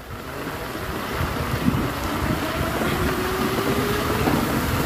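Wooden ride cart rattling and rumbling as it slides down a track of split bamboo slats, getting louder over the first second or so as it picks up speed, with wind rushing over the microphone.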